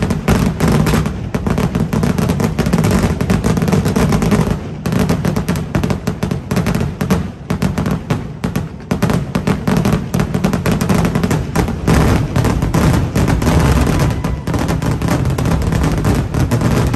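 Fireworks barrage: a loud, dense, unbroken run of rapid bangs and cracks, with a short dip about four and a half seconds in.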